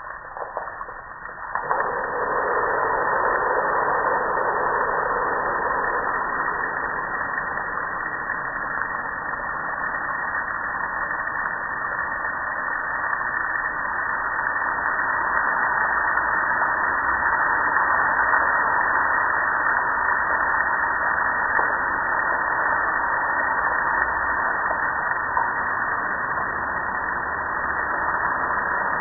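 A steady spray of water rinsing soap off a metal gas grill, starting suddenly about a second and a half in after a few moments of dripping.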